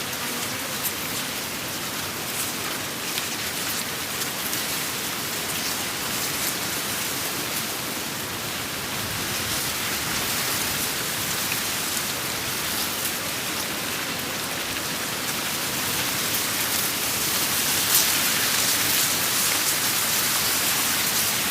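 Ambient wind sound effect: a steady hiss with faint scattered ticks, growing a little louder over the last few seconds.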